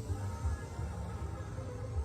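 Music with a heavy, pulsing bass.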